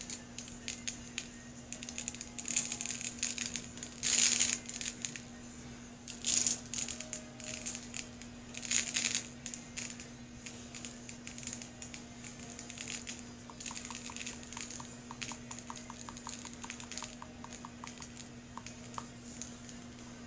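Loose glitter shaken from a small plastic cup onto an epoxy-coated tumbler, grains scattering onto the tumbler and the paper beneath in several short rustling bursts, the loudest about four and nine seconds in. A run of faint quick ticks follows later, and the motorised cup turner hums steadily underneath.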